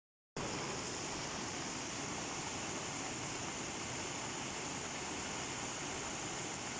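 Steady rushing noise of running water, unbroken after it starts a moment in.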